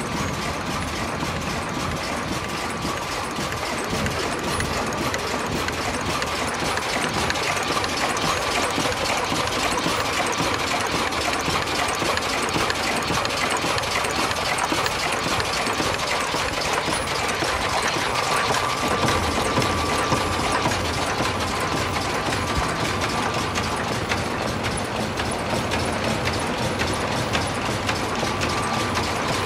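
Automatic ultrasonic face mask machine running at production speed: a steady, dense clatter of its gears and indexing mechanisms, with a thin steady high tone through it.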